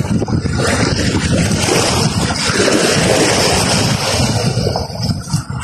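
Small waves washing onto a sandy, pebbly shore, with wind buffeting the microphone.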